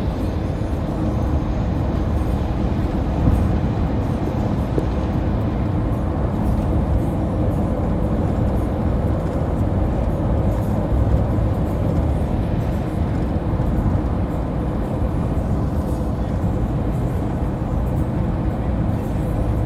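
Steady low drone of a car travelling at highway speed: tyre and road noise with engine hum, holding even throughout.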